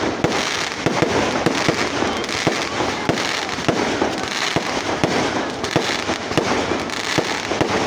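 Fireworks going off in a dense, continuous barrage of many overlapping bangs and crackles.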